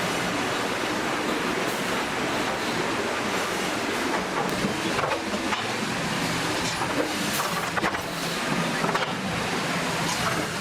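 Sawmill machinery running steadily: a continuous mechanical rush with a low hum underneath, and a few light clicks and knocks in the second half.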